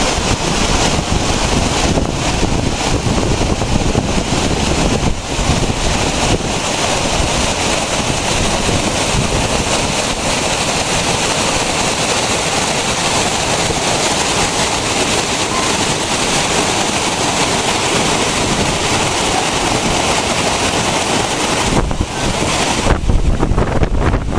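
Waterfall rushing steadily, with wind buffeting the microphone in low rumbling gusts that grow stronger near the end.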